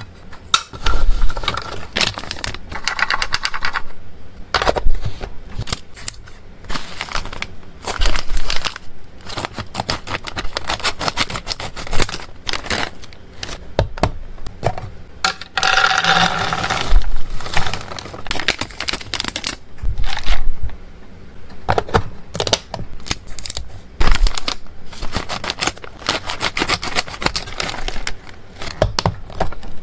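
Hands handling plastic food-storage containers: many sharp clicks and taps of lids being pressed, snapped and set down, with scraping of plastic and stretches of crinkling from a foil treat bag.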